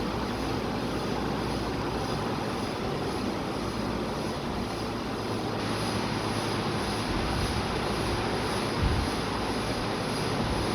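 A steady mechanical whir with a hiss over it, and a brief low thump about nine seconds in.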